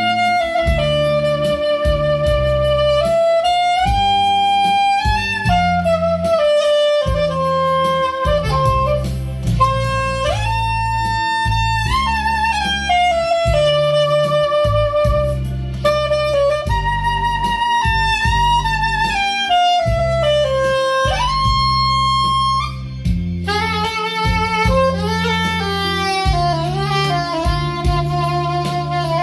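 A freshly repaired soprano saxophone playing a slow, lyrical melody of held notes joined by slides, with a busier ornamented run about three quarters of the way through. A backing accompaniment sits underneath.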